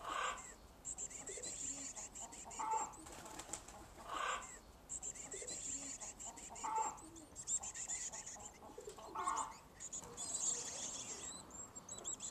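Black-capped chickadee nestlings begging with a steady, very high-pitched chorus of calls. Five short flutters sound at the birdhouse, about every two seconds.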